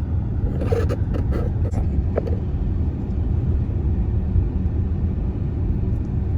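Car interior road noise while driving: a steady low rumble of the engine and tyres, with a few light clicks in the first couple of seconds.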